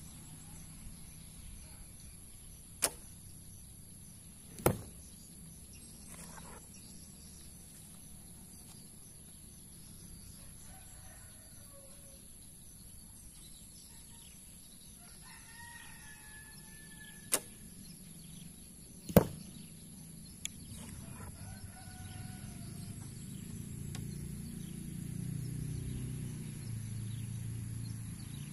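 Two shots from a traditional bow: each a sharp snap of the released string, followed about two seconds later by a louder smack as the arrow strikes the target.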